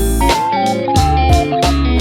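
Background music: a melody picked on guitar over bass and a steady beat.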